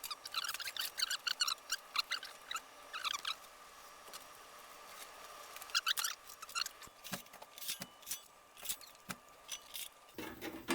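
Light irregular clicking and rattling of small metal parts and screws being handled while a MIG welder is put back together, in quick clusters early on and again toward the end. A low hum starts near the end.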